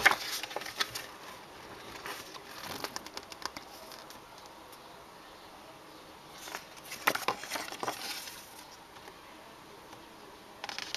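Light rustling and clicking of trading cards and paper being handled, in three short spells: at the start, a couple of seconds in, and again in the middle.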